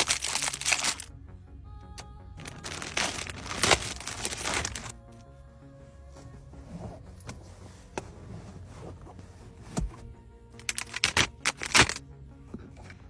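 Soft background music, broken by three loud bursts of noisy rustling and crackling from items being handled: one at the start, a longer one from about two and a half to five seconds in, and one near the end.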